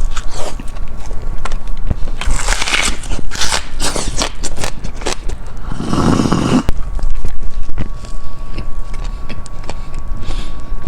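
Close-miked eating: crunching and chewing of food with wet mouth noises and crackly clicks. About six seconds in there is one short, louder, deeper sound.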